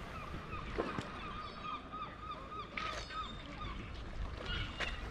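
A bird calling a quick run of short, repeated notes for about two seconds, with a few sharp knocks.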